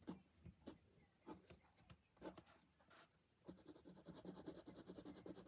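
Faint scratching of a drawing tool on paper: a few separate strokes, then from about three and a half seconds in, rapid back-and-forth scribbling.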